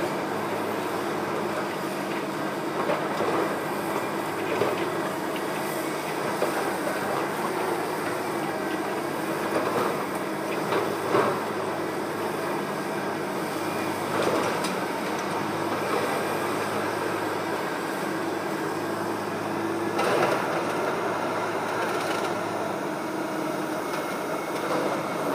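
Demolition machinery working on a factory: a steady engine rumble, with scattered sharp clanks and crunches of metal and debris.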